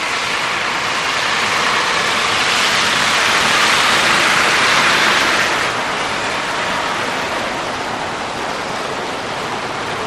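Highway traffic on snowy pavement: a steady hiss of tyres and engines. It swells about three seconds in and eases after about five and a half seconds, as heavier vehicles pass below.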